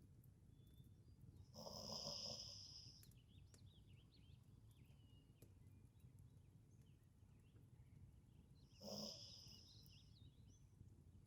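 Sleeping Labrador retriever snoring softly twice: a longer breathy snore about two seconds in and a shorter one about nine seconds in, over a faint low background hum.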